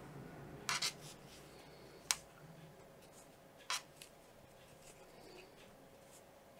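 Quiet handling sounds of crocheting: yarn drawn and hooked through stitches with a crochet hook, with a few short clicks, a pair just under a second in, the sharpest about two seconds in and another near four seconds.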